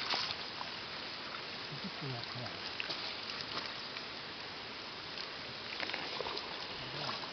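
Light water sloshing and dripping over a steady outdoor hiss, with a few faint distant voices now and then.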